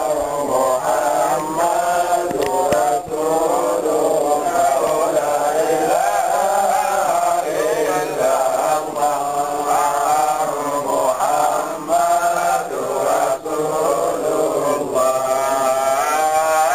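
Men's voices chanting together in a continuous, melodic Islamic dhikr.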